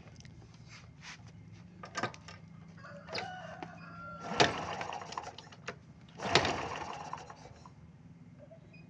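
A rooster crowing, loudest about halfway through and again a little later, with a few sharp clicks before it.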